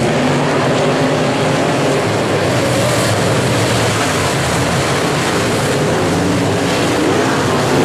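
Several dirt modified race cars' V8 engines running together around the dirt oval, loud and steady.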